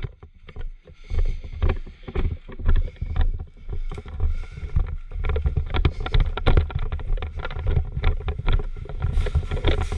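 Low rumble with many irregular clicks, knocks and rustles, the kind of handling and movement noise a microphone carried by a moving player picks up.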